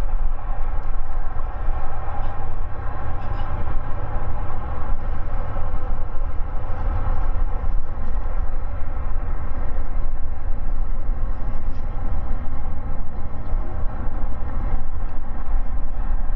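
Boeing 777F freighter's GE90-110B1 turbofan engines running: a steady jet whine of many tones over a deep rumble.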